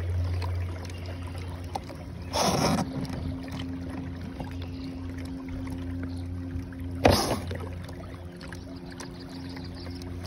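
Battery-powered Bixby kayak motor running with a steady hum at full throttle, pushing a fishing kayak upriver. Three brief whooshing bursts break in, the loudest about seven seconds in.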